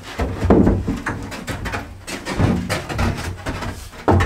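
A shower base being pulled out of its alcove and tipped up on edge: irregular knocks, bumps and scrapes as it shifts against the plywood subfloor and wall studs, with a sharp knock near the end.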